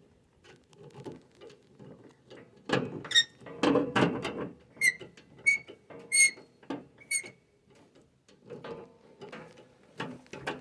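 A flat screwdriver scraping and clicking as it tightens a terminal screw on a breaker panel's ground bar, with a louder run of scraping about three seconds in and four light ringing metal ticks a little after the middle.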